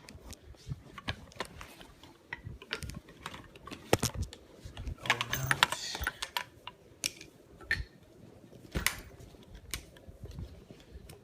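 Irregular small clicks, taps and rustles of bagpipes and gear being handled inside a padded bagpipe case, busiest about halfway through, with a sharper knock near the middle and another later on.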